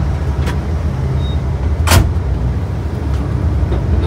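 Mercedes-Benz OH 1526 bus on the move, heard from inside the cabin: a steady low engine and road rumble, with a sharp knock about two seconds in and a fainter click near the start.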